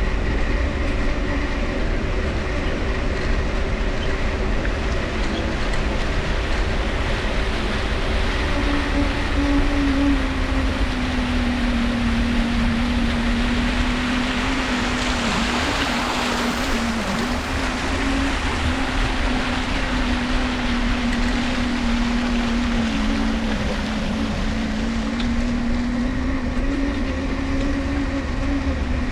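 Mifa folding bicycle riding along, its dynamo giving a steady humming whine whose pitch follows the riding speed and drops lower about a third of the way in, over a low rumble of tyres and wind. A broad rushing noise swells and fades around the middle.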